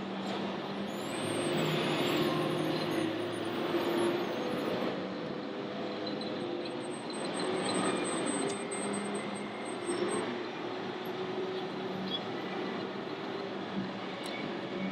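Busy exhibition-hall noise with a steady crowd murmur. Over it, the engine hum of radio-controlled model trucks' sound modules comes and goes.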